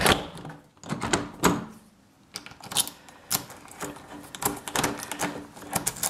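Mechanical clicks and clunks of a key turning in a newly fitted euro cylinder lock on a uPVC door, working the door's locking mechanism as the lock is tested.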